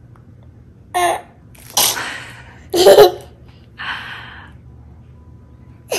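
A young girl's playful vocal noises: a short voiced sound about a second in, a breathy rush, then a loud sneeze-like burst about three seconds in, followed by a softer breathy hiss.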